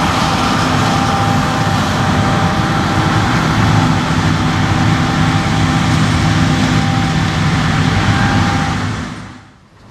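Heavy harvest machinery running in the field: large diesel engines with a dense steady rumble and a thin whine above it, fading out near the end.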